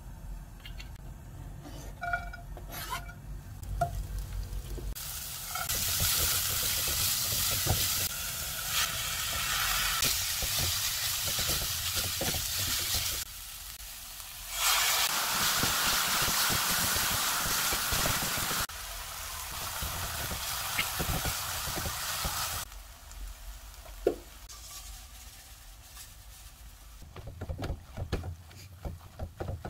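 Fish cake strips, onion and scallions sizzling as they stir-fry in oil in a frying pan. About halfway through the sizzle briefly drops away, then comes back louder as seasoning sauce and water go in. Near the end it is quieter, with tongs clicking against the pan as the food is tossed.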